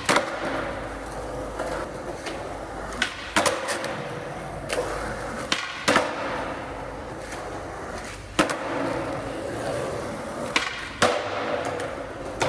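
Skateboard rolling on concrete, the wheels running steadily, with a sharp clack every second or two as the tail pops and the board lands during flatground tricks.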